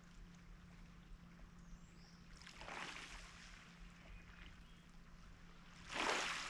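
Small lake waves washing over the pebbles at the water's edge, two soft hissing surges that swell and fade, the second louder near the end.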